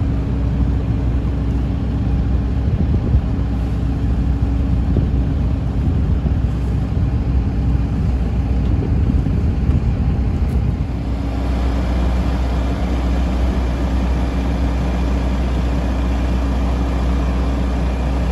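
Steady low drone of airport apron machinery with a few steady hum tones through it, turning a little brighter and hissier about eleven seconds in.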